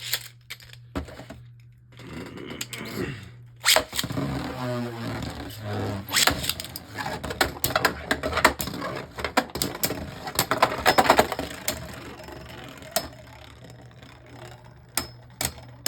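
Beyblade Burst spinning tops launched into a plastic stadium with a sharp snap, then whirring, scraping and clacking against each other and the stadium walls for several seconds, with a few last clicks near the end.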